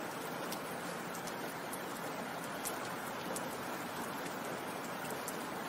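Steady rain falling, an even hiss with a few faint drop ticks scattered through it.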